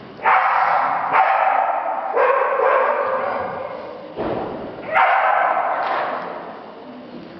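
Dog barking in a large echoing hall: about five loud barks in the first five seconds, each ringing on as it fades.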